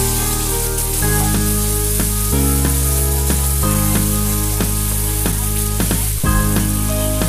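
Kadhi mixture sizzling in a hot pan over pakoras as it is poured in and stirred with a spoon, a steady hiss with light scrapes. Background music with sustained chords that change every second or two plays over it.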